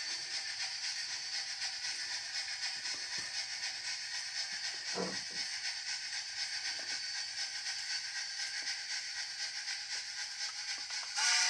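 Large-scale model steam locomotive running along the layout track: a steady hiss with faint light clicks and one stronger knock about halfway through. Just before the end a louder sound with several steady tones begins.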